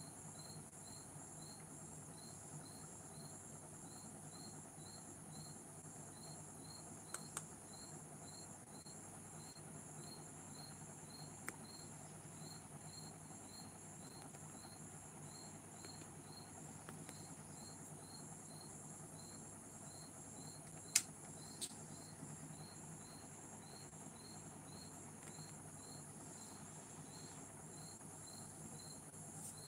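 Faint insect chirping, a short high chirp repeating a little over twice a second, over a steady low hum, with a few sharp clicks, the loudest about two-thirds of the way through.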